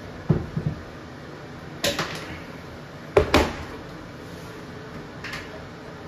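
A few separate sharp clicks and knocks of hand tools being handled at the base of a toilet, the two loudest about two and three seconds in, with a lighter one near the end.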